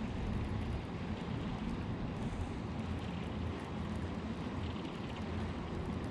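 Wind buffeting the microphone: a steady low rumble with an even hiss above it and no clear pitch.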